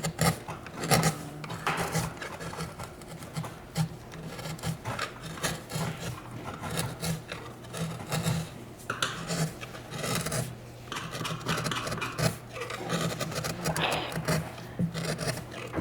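Woodcut gouges cutting and scraping into a wooden printing block in quick, irregular strokes, over a steady low hum.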